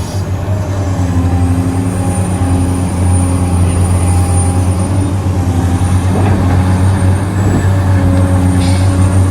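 Heavy diesel engines of mining excavators and haul trucks running under load: a steady low drone with a faint high whine that wavers in pitch.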